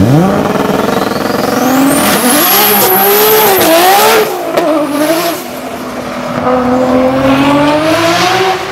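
Nissan Skyline R34 GT-R's twin-turbo RB26 straight-six engine under hard acceleration. Its pitch climbs over the first few seconds with a high whine rising above it, then dips and climbs again a few times before holding at a steadier pitch as it gets quieter.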